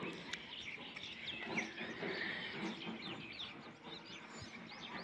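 Birds chirping: many short, high chirps overlapping one another throughout, over faint outdoor background noise.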